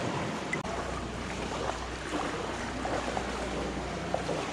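Steady rushing and splashing of an underground river's water through small rapids, with a brief dropout under a second in.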